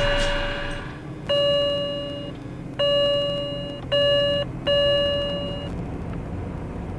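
Electronic beeps at one steady mid pitch, each about a second long and cut off sharply: five in a row, the fourth shorter than the rest.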